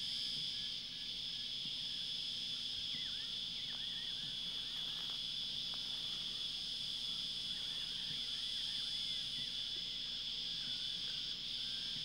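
Steady, high-pitched drone of insects calling without a break, with faint short bird chirps from about three to nine seconds in.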